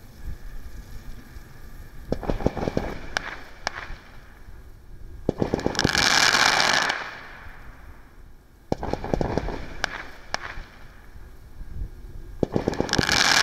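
Firework cake firing its crackling eruption shots. Clusters of sharp pops and crackles come about two seconds in and again around nine seconds, and each is followed by a louder, dense crackling hiss, one around six seconds and one near the end.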